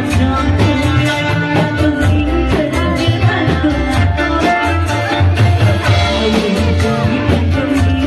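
A woman singing into a microphone over amplified Reog Indramayu folk music, with a steady drum beat and a strong bass line.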